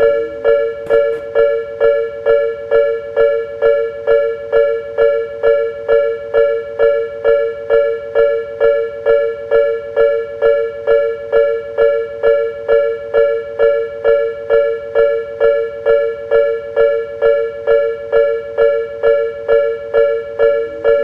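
Japanese railroad crossing warning bell ringing: an electronic two-tone ding repeating steadily about twice a second.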